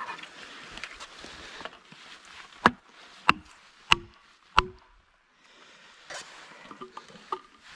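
Axe poll tapping plastic felling wedges into the back cut of a small tree: four sharp strikes about two-thirds of a second apart, the last one ringing briefly.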